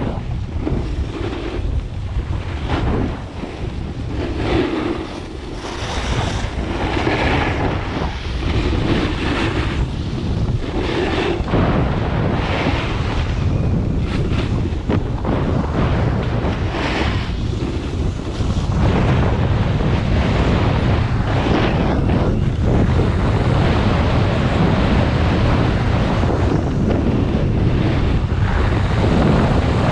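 Wind rushing over an action camera's microphone during a fast ski-slope descent, mixed with recurring scrapes of edges sliding over packed snow. The rush gets louder about two-thirds of the way through as speed climbs toward 28 mph.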